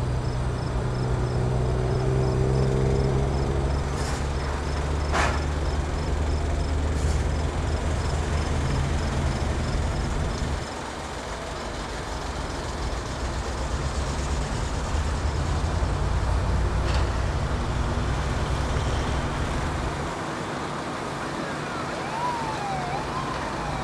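Fire truck engines running as a line of fire trucks drives slowly past, a low rumble that swells and fades with each truck. Near the end a siren starts up, wailing up and down.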